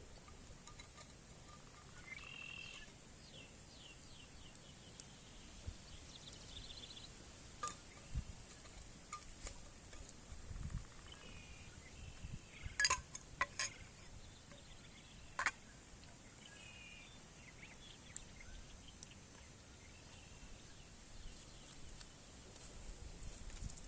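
Forest ambience: birds chirping in short repeated calls over a steady high hiss, with a few sharp clicks or snaps around the middle, the loudest two about halfway through.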